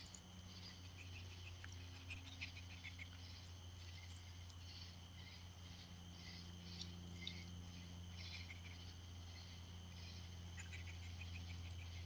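Night insects chirping in a steady chorus of rapid pulsed chirps, over a low steady hum.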